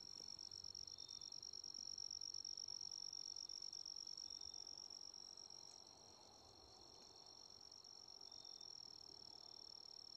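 Faint, unbroken high-pitched trill of insects over quiet woodland ambience.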